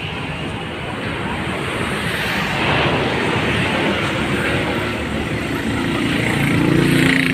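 Steady city street noise from road traffic on the bridge, with people's voices in the crowd; it grows louder toward the end.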